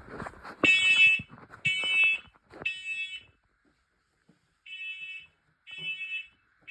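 Smoke alarm test: a few handling clicks, then the alarm's piezo horn sounds its loud, shrill evacuation signal in groups of three half-second beeps, one a second, with a pause between groups (the temporal-three smoke pattern). The second group is fainter than the first.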